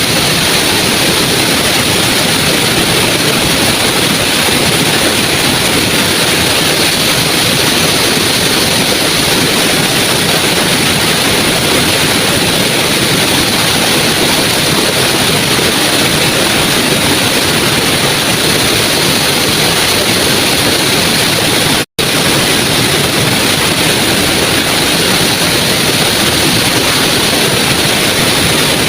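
Small waterfall's water rushing steadily, a loud even hiss, with a split-second dropout about three quarters of the way through.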